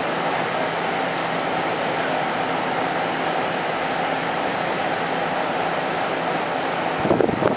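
A diesel railcar's engine idling steadily while the train stands at a station. Near the end there is a brief louder rumble.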